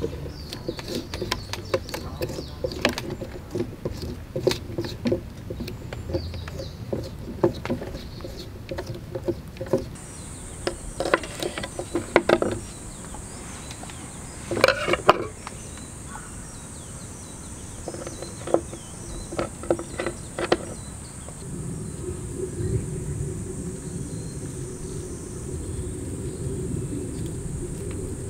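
Knife cutting asparagus stalks on a wooden cutting board: a quick run of knocks and snaps for about ten seconds, then a few scattered taps and clicks. A steady high-pitched whine joins about ten seconds in.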